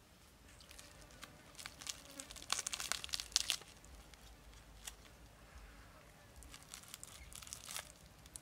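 Charred, crisp skin of a large whole grilled fish crackling and tearing as it is peeled and scraped off with a utensil, in two bouts of crackling, the louder one about two to three and a half seconds in.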